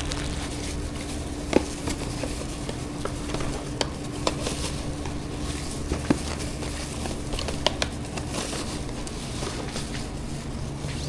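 Kitchenware being handled while food is packed up: scattered light clicks and knocks over a steady low hum.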